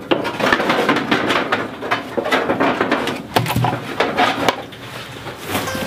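Irregular clattering and knocking of a nesting-box tray being handled and fitted into a galvanized metal nesting box.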